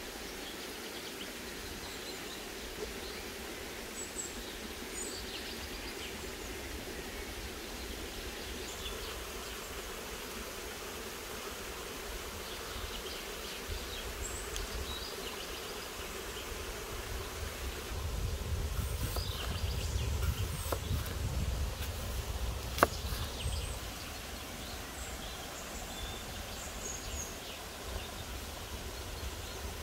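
Steady outdoor background hiss with faint, scattered bird chirps. A low rumble swells for several seconds past the middle, and a single sharp tap comes about two-thirds of the way through.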